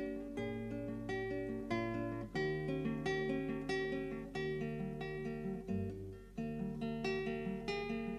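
Background music: plucked acoustic guitar playing a run of notes and chords.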